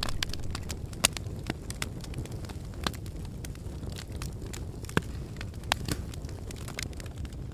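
Wood campfire crackling: a steady low rumble of burning with scattered sharp pops, the loudest about one, three and five seconds in.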